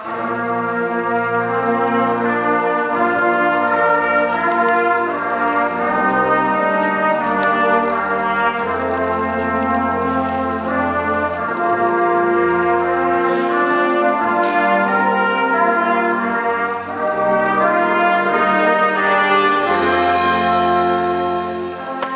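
Concert band playing loud sustained brass chords, trumpets and trombones prominent over moving low notes, the full band coming in at the start.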